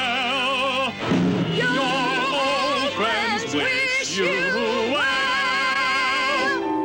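Film musical number: a voice singing with wide vibrato over musical backing, sliding up between notes and then holding one long note near the end.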